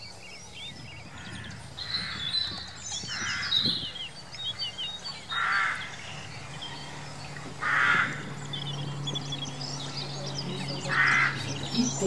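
Birds at a seabird colony calling: about five harsh, caw-like calls, each about half a second long and a few seconds apart, over a busy chatter of many short high chirps.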